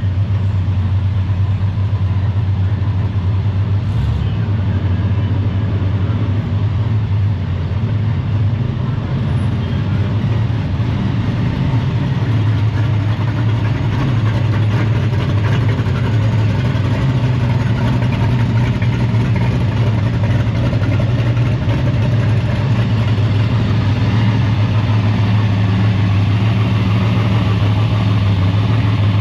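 Pickup truck engines running at low speed with a steady low rumble as the trucks creep past close by.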